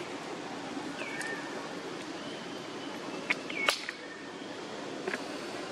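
Outdoor ambience with short, high, whistle-like animal calls that drop in pitch and then hold, every second or two, and a couple of sharp clicks about three and a half seconds in.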